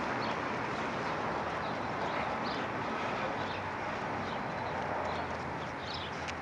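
Steady outdoor street ambience, a constant even rush, with a few faint short high chirps.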